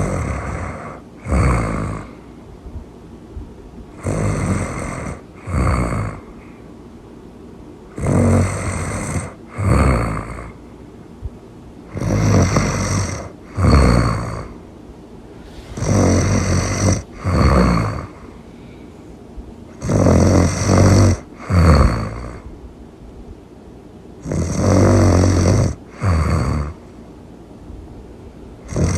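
Loud snoring in a steady cycle about every four seconds, each cycle a longer snore followed by a shorter one.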